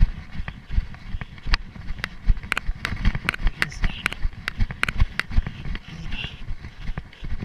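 A runner's footfalls on grass, picked up by a chest-mounted GoPro: irregular low thumps several times a second, with sharp clicks and rustles over them.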